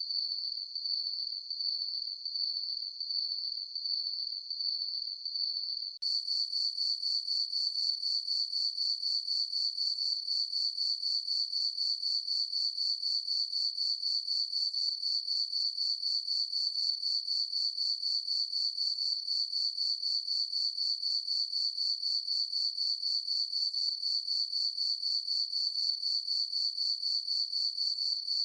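Crickets chirping in a steady, rapidly pulsing high trill. About six seconds in the sound switches abruptly to a slightly louder, sharper version of the same chirping.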